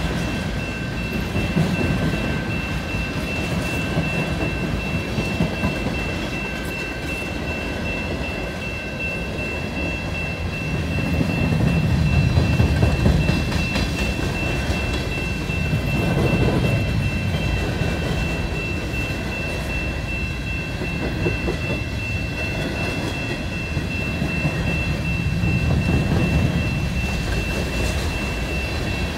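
Freight train cars rolling steadily through a road crossing, a continuous rumble and clatter of wheels on rail that swells a few times as heavier stretches of the train pass. A thin steady high-pitched tone runs underneath.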